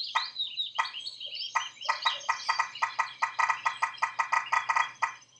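Animal calls on a nature soundtrack: a few separate short rasping calls, then a fast, even run of them at about seven a second that stops shortly before the end, with birds chirping high above.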